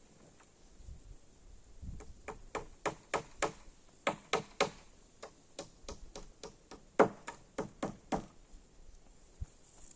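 A run of sharp knocks, irregular at about two to three a second, starting about two seconds in and stopping about eight seconds in, the loudest one about seven seconds in.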